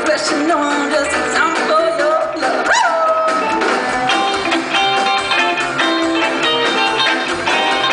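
Live rock and roll band playing, with guitar to the fore; pitches bend and glide in the first few seconds, then held notes ring on steadily.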